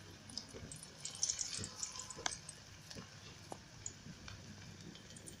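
Aloo tikkis (potato patties) shallow-frying in hot oil in a pan: a soft sizzle with scattered crackles and pops, busiest between one and two seconds in.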